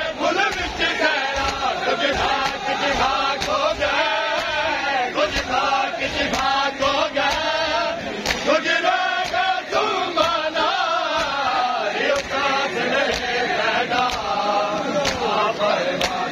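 A crowd of men chanting a noha together in a loud, continuous lament. Sharp chest-beating slaps of matam keep a steady beat of about one a second.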